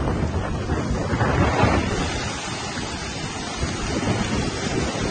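Flash-flood water rushing in a steady noisy wash that swells louder about a second in, with wind buffeting the microphone.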